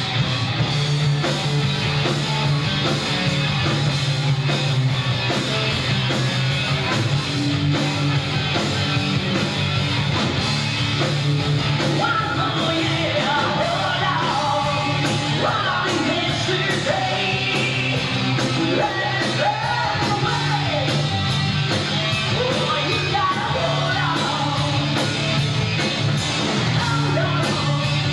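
Rock band playing live: electric guitars, bass and drums, with a singer whose vocal comes through most clearly from about twelve seconds in.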